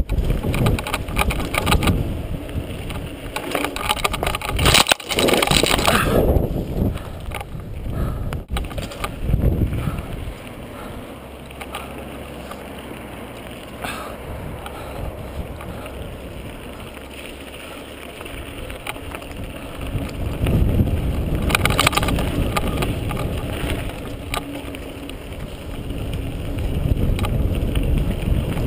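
Mountain bike rolling fast down a dirt trail: tyre noise on dirt and gravel with the rattles and knocks of the bike over bumps, under a rumble of wind on the camera microphone. The noise is quieter for a stretch in the middle and grows louder again after that.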